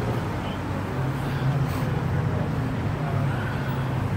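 Road traffic: cars driving past on a multi-lane street, a steady rush of engines and tyres.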